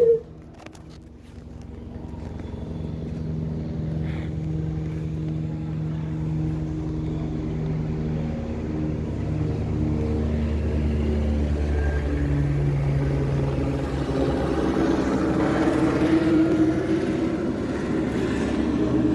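Helicopter in flight, its rotor and engine noise growing louder over the first few seconds and then holding steady.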